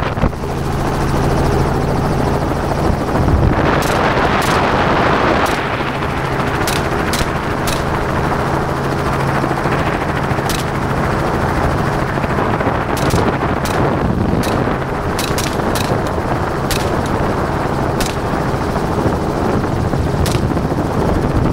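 Helicopter running steadily, with about seventeen gunshots fired from it at irregular intervals, some in quick runs of two or three, from about four seconds in until near the end.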